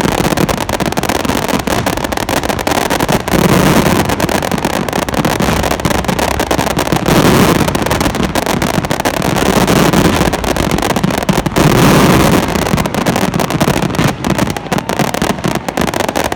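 Fireworks going off in a dense, continuous barrage of crackles and bangs, with a low rumble that swells and fades every few seconds.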